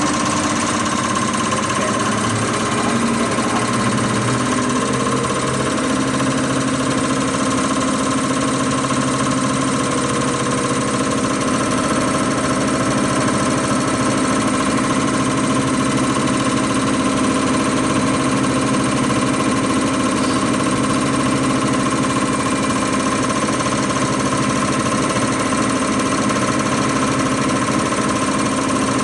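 Common rail injector test bench running steadily: the motor-driven high-pressure pump whirs while the Bosch common rail injectors fire in fast, even ticking at 160 MPa rail pressure during the full-load (VLI) test step.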